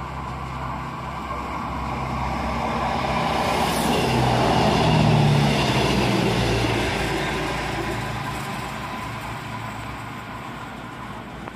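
A Renfe regional passenger train passing close by. Its running noise and a low hum swell to a peak about five seconds in, then fade as it moves away.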